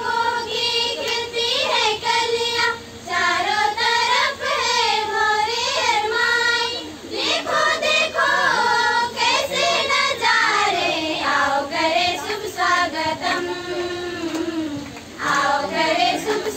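A group of schoolgirls singing a Hindi welcome song together in unison, phrase after phrase, with a short breath break near the end.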